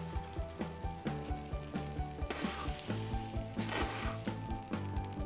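Vegetarian burger patty sizzling on an open contact grill, frying steadily, with two louder swells of sizzling partway through.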